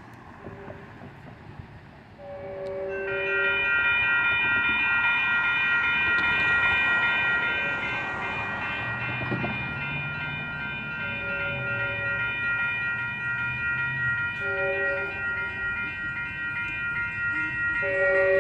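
Railroad crossing warning bell starts ringing rapidly about two seconds in and keeps going as the crossing activates. Over it, an approaching train's horn sounds four blasts, long, long, short and then long near the end: the standard warning for a grade crossing.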